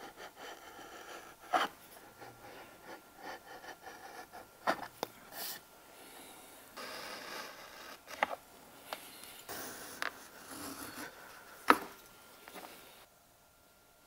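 Japanese hand edge trimmers shaving chamfers off a wooden edge and then paring plastic edge-banding tape: short, irregular scraping strokes of a blade on wood and plastic, broken by several sharp clicks and taps, the loudest near the end. The sound stops about a second before the end.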